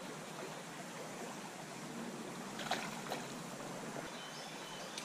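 Shallow freestone trout stream flowing and trickling steadily over gravel, with a sharp click at the very start and a couple of faint taps partway through.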